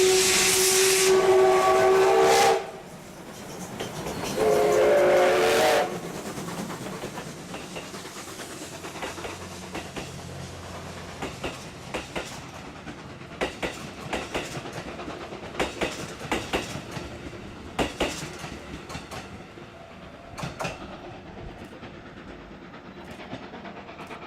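Whistles of the double-headed D51 and C56 steam locomotives: a loud chord-like blast cutting off about two and a half seconds in, then a second blast about four and a half seconds in. After that come the passing passenger coaches' wheels clicking irregularly over the rail joints.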